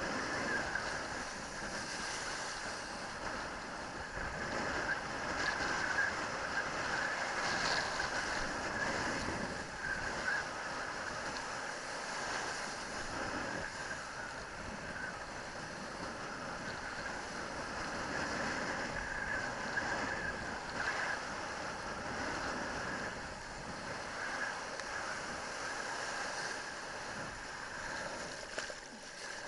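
Kiteboard riding through choppy surf: water rushing and spraying past the board, with wind buffeting a helmet-mounted camera.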